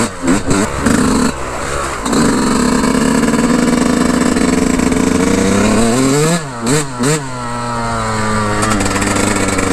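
Yamaha YZ125 two-stroke dirt bike engine running while riding along in gear, with short throttle blips near the start and three quick ones about six to seven seconds in, then a smooth rise in revs near the end.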